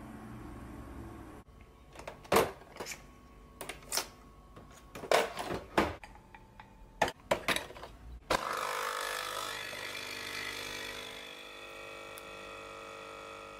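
Nespresso capsule coffee machine being loaded and started: a run of sharp clicks and knocks as the lever is lifted, a capsule goes in and the lever snaps shut. Then, about eight seconds in, the pump starts with a steady buzzing hum as it brews a shot.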